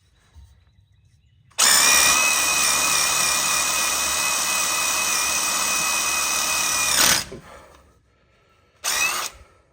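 Electric drill drilling out a broken yoke bolt in a rear axle. It runs steadily at full speed for about five seconds with a high motor whine, then winds down. Near the end it gives a second short burst.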